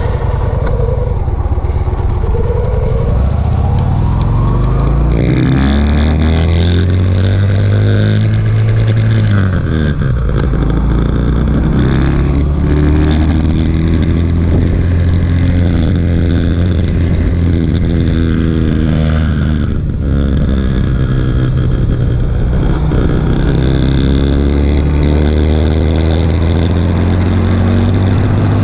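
Motorcycle engine accelerating up through the gears: the pitch climbs, drops at an upshift about ten seconds in and again about twenty seconds in, then climbs again.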